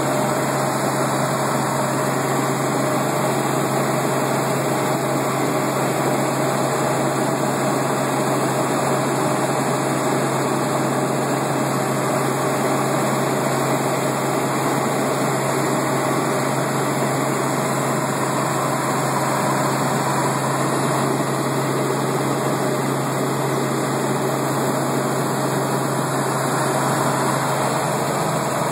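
Helicopter heard from inside the cabin in flight: a loud, steady drone of engine and rotor with a constant low hum, unchanging throughout.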